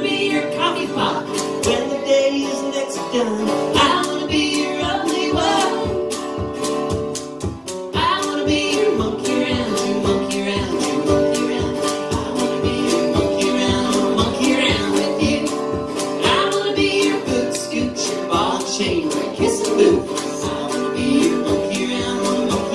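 Live folk duo playing: an acoustic guitar strummed to a steady beat, with a female voice singing.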